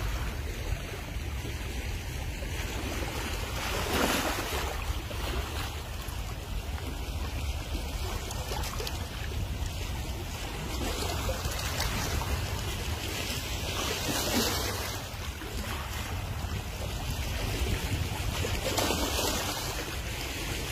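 Small sea waves washing and lapping over shoreline rocks, with louder surges about 4 seconds in, around 14 seconds and near 19 seconds, over a steady low rumble of wind on the microphone.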